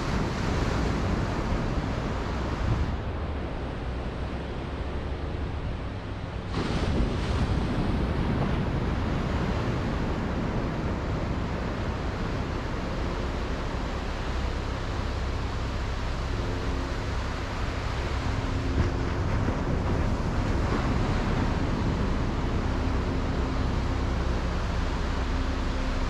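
Small ocean waves breaking and washing up a sandy beach: a steady rush of surf that swells and grows louder about six seconds in as a wave breaks.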